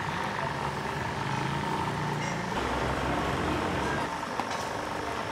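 Large goat sate skewers sizzling and smoking over a charcoal grill, a steady hiss with a few small crackles. A steady low engine-like hum runs underneath and grows louder for a while in the middle.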